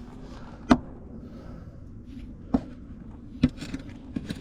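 Several short, sharp knocks and taps, spaced unevenly about a second apart, over a faint steady background.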